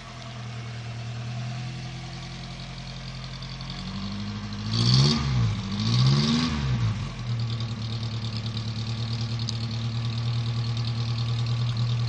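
1959 Lancia Appia Vignale convertible's narrow-angle V4 engine idling, heard at the exhaust tailpipe. It is blipped twice about five and six seconds in, each rev rising and falling, then settles back into a steady idle.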